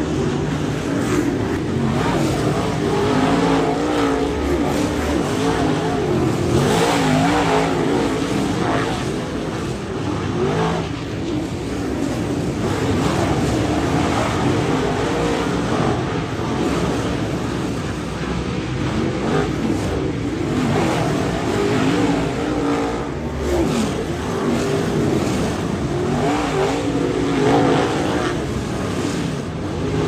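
A pack of dirt late model race cars with V8 engines racing through a turn. The engines drone continuously and loudly, their pitch rising and falling as cars lift and get back on the throttle.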